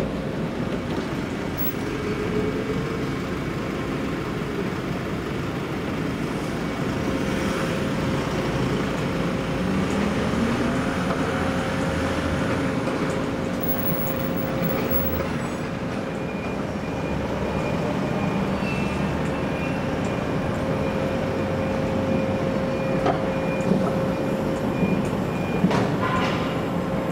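A heavy vehicle running with a steady hum and a rising engine note about ten seconds in. A row of short high beeps sounds through the second half.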